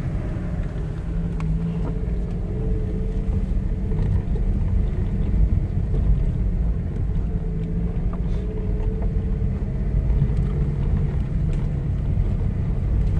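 Car interior noise while driving on a dirt field track: a steady low rumble of engine and tyres on the rutted ground, with a few faint knocks.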